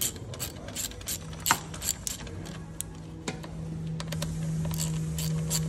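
Small hand ratchet bit driver clicking as it turns a screw on a Sea-Doo's bilge drain plug, in irregular runs of sharp ratchet clicks that come thicker near the end. A steady low hum joins about a second in.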